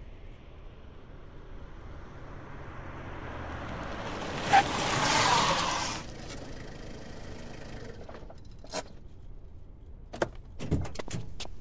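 A car drives up and pulls to a stop, its noise swelling over about five seconds and cutting off sharply. A quieter running noise follows, then a few sharp clicks and knocks near the end as a car door is opened.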